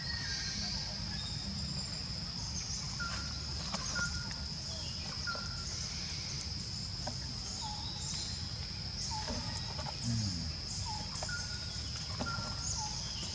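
Outdoor ambience: a steady high-pitched insect drone, with short bird chirps on and off throughout, over a low rumble.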